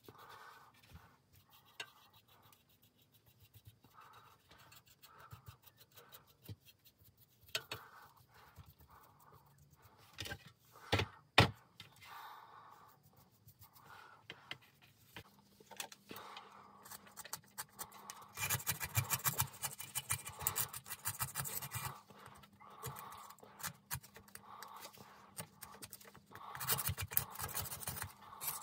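Stiff paintbrush dabbing and scrubbing paint stripper into the painted steel clamp, rails and springs of a Dunlop M15 bicycle saddle: light ticks of the bristles and a few sharp knocks about ten to eleven seconds in, then harder stretches of scratchy scrubbing. Near the end a plastic scraper scrapes over the metal.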